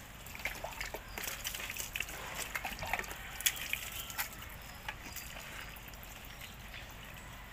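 Hands scrubbing a wet dog's coat during a bath: faint wet rubbing with many small crackles and clicks.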